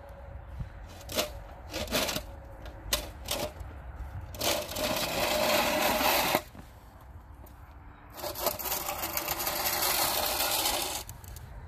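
Snow shovel scraping along the pavement in two long pushes of about two seconds each, after a few short knocks and scrapes of the blade.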